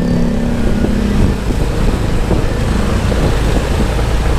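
Busy road traffic heard while riding a motorbike, with a steady engine hum for the first second or so and a heavy low rumble of wind on the microphone.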